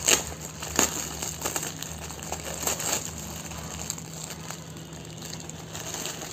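Thin plastic wrapper of a tissue-paper pack crinkling as it is handled and pulled open by hand, with a few sharp crackles in the first three seconds and quieter rustling after.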